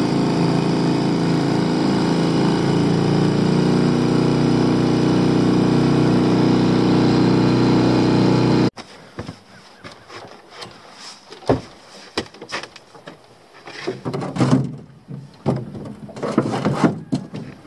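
Small boat's outboard motor running steadily while under way, cutting off abruptly about nine seconds in. Then scattered knocks and clatter of gear being handled in the boat.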